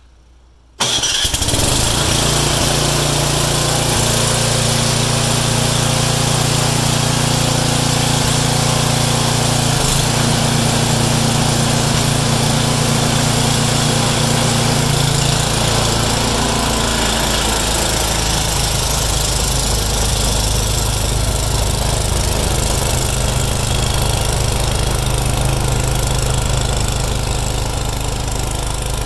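John Deere walk-behind snow blower's engine started on its plug-in electric starter, catching suddenly about a second in and then running steadily at a loud, even level. Its pitch shifts a little past the middle as the machine is put to work throwing snow.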